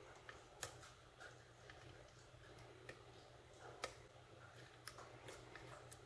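Faint, scattered metallic ticks and clicks of a lock pick working the pins inside a pin-tumbler lock's keyway. The sharpest tick comes about half a second in, with two more near the four- and five-second marks, over a faint steady low hum.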